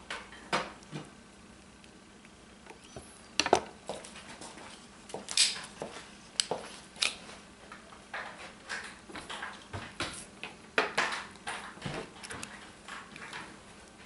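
Scattered sharp clicks and snaps of a Cold Steel Recon 1 folding knife being worked by hand while its pivot screw is set with a Torx driver, the loudest about three and a half seconds in and again near eleven seconds. The freshly cleaned and lubricated pivot runs without squeaking.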